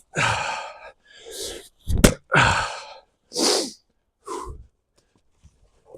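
A man breathing hard, with loud exhaled breaths between efforts, and one sharp axe strike into a log of firewood about two seconds in.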